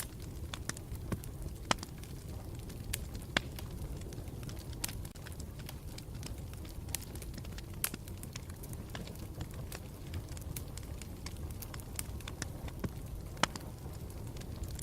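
Campfire burning with a low steady rumble and irregular sharp crackles and pops from the burning wood, a few of them louder than the rest.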